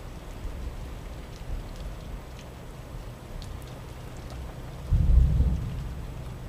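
Thunderstorm: steady rain with scattered drip ticks over a low, rolling thunder rumble. About five seconds in comes a louder, deep thunder boom that fades over about a second.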